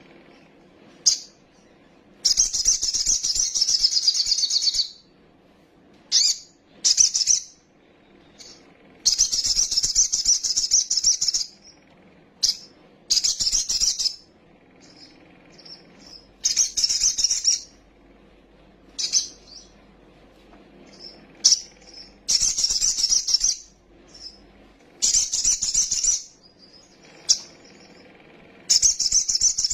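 Sogok ontong sunbird (kolibri sogon) singing in repeated bursts of rapid, high-pitched chattering chirps, each lasting a couple of seconds, with single short chirps between bursts.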